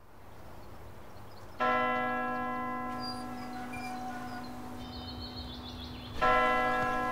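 A church bell struck twice, about four and a half seconds apart, each stroke ringing on and slowly dying away.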